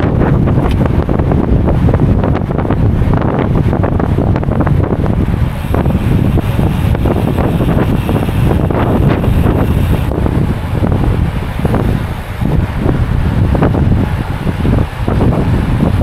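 Wind buffeting the microphone of a camera carried on a moving bicycle: a loud, steady rumble with crackling gusts.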